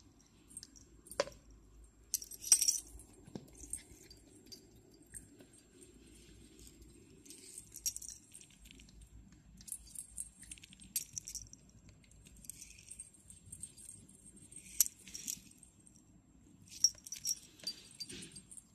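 Small bell on a miniature poodle's collar jingling in short, irregular bursts as the dog shakes and tugs a rubber chicken toy, with a few knocks against the tile floor.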